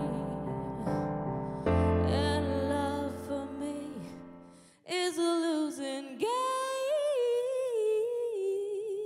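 Soft instrumental backing music with a deep bass note fades out about halfway through. A woman then sings alone into a microphone, holding long notes with a wavering vibrato.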